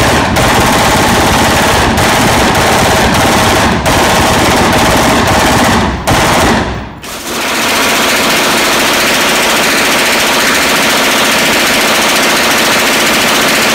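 Fully automatic AR-pattern rifle firing long, continuous bursts on an indoor range. The fire breaks off briefly about six to seven seconds in, then a second rifle of the same kind, fed from a drum magazine, runs on in a steady stream.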